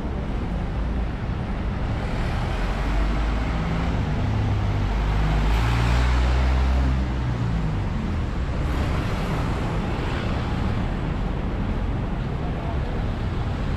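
Street traffic: a box truck passes close by with its engine running, loudest about six seconds in, and another vehicle passes a few seconds later.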